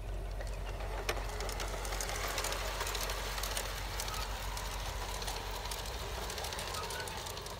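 LGB garden-scale model train running along the track: the locomotive's electric motor whirs and the wheels click over the rails. It grows louder through the middle and eases off near the end as the train moves away.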